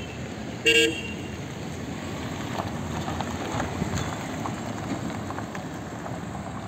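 A vehicle horn gives one short honk just before a second in, over steady road traffic noise.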